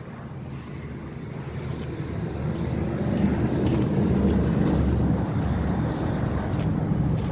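A John Deere farm tractor's diesel engine running, a low rumble that grows steadily louder over the first three or four seconds as the tractor comes closer, then holds steady.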